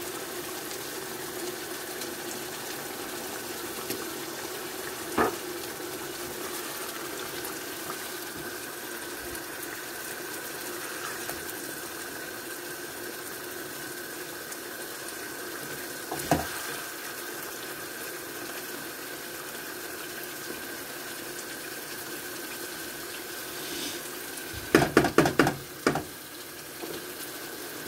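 Tomato-and-yogurt curry sauce simmering in a frying pan on a gas hob, a steady bubbling hiss. A wooden spatula knocks the pan once about 5 seconds in and again about 16 seconds in, and near the end a short burst of clatter comes as the pan is handled on the hob grate.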